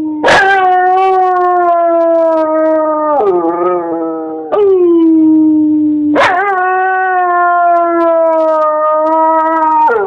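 Siberian husky howling: three or four long, drawn-out howls in a row, each starting abruptly and sliding slowly down in pitch, with a brief wavering warble about three seconds in.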